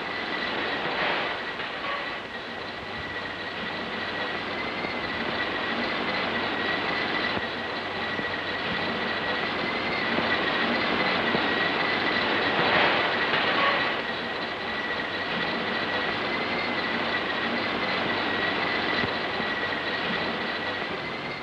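Rotary snowplow running as it cuts and blows snow: a steady rushing mechanical noise with a constant high whine, swelling briefly about a second in and again around thirteen seconds in.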